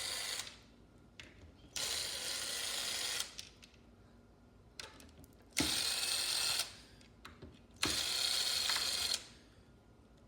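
Cordless drill/driver with a 3 mm hex bit spinning out the woofer's mounting screws in short bursts of about a second each, one after another, with small clicks in the gaps between screws.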